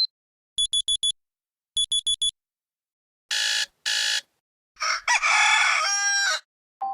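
Motorola One Action alarm tones played one after another: two groups of four quick high beeps, two longer buzzy tones, then a rooster crowing near the end.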